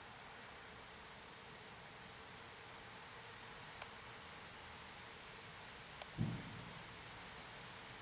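Steady, fairly faint rain hiss during a thunderstorm, with two sharp ticks and, about six seconds in, a single short low thump that fades within half a second.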